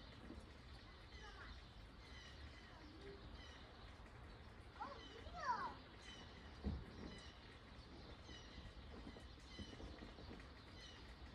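Faint outdoor ambience: a low, steady rush of noise with small birds chirping repeatedly. A few louder gliding calls come about five seconds in, and a single low thump about seven seconds in.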